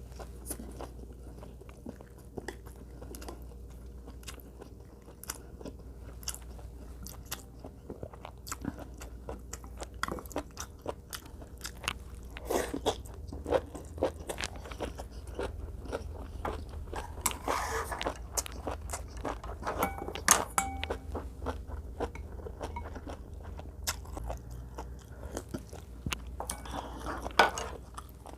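A person eating close to the microphone: repeated crunchy bites and chewing, with many short sharp clicks, busiest through the middle of the stretch.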